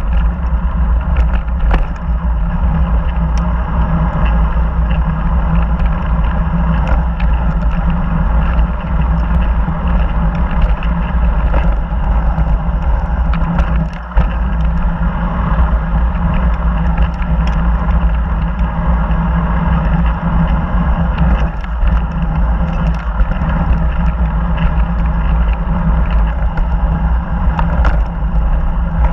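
Mountain bike rolling fast down a dirt-and-gravel singletrack: steady wind rumble on the action camera's microphone over the crunch of tyres on loose gravel, with scattered short rattles and clicks from the bike on bumps.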